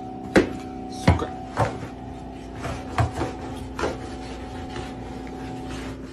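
A mop handle jabbed under a refrigerator, knocking and scraping against the appliance's base and the floor: about half a dozen sharp knocks, irregularly spaced, over a steady hum.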